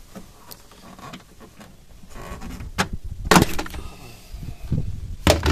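Rear interior plastic trim panel being pulled away from the car body, with rustling handling and a few sharp snaps as its metal and plastic retaining clips pop out; the loudest snap comes just past halfway.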